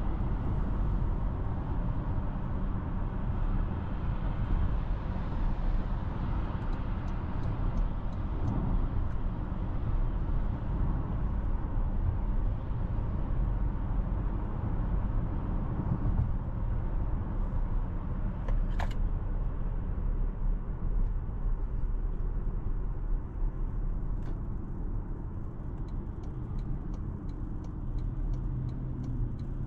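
Toyota Corolla Cross driving at night: a steady low rumble of road and tyre noise with engine hum, and a single short click about two-thirds of the way through.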